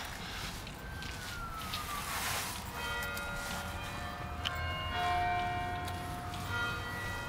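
Film soundtrack: over a constant hiss, a single tone slides downward about a second in, then several steady high tones sound together, shifting pitch in steps.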